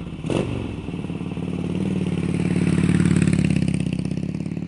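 Motorcycle engine running, growing louder to a peak about three seconds in and then easing off.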